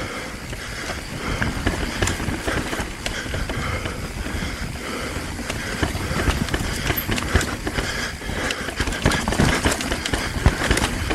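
Mountain bike rolling fast down a rocky descent: tyres clattering over rock and roots and the bike rattling, heard as a stream of irregular knocks over a constant low rumble.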